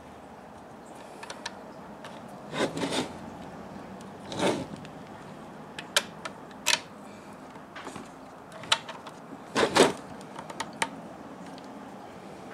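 Intermittent handling of 3D-printed PETG plastic parts being fitted together: scattered short scrapes and rubs, with a couple of sharp clicks near the middle.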